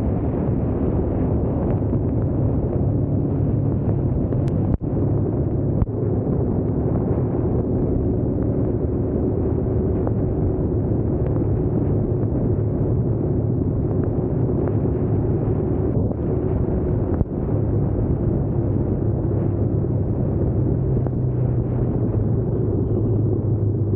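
Motorcycle engine running while riding, with wind rushing over the microphone. The engine drone holds steady, dipping briefly twice.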